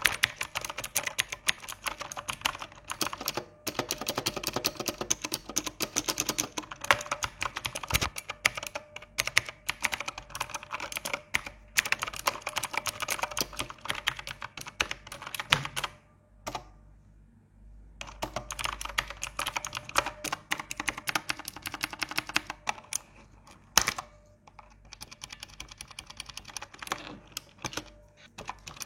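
Fast typing on a Gamepower Ogre mechanical keyboard with clicky blue switches: a dense, uneven run of key clicks, stopping for about two seconds a little past halfway, then carrying on.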